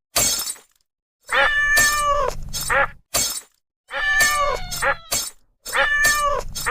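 Cat meow sound effects: three drawn-out meows about a second and a half apart, with short crashes of breaking glass and a shorter call between them.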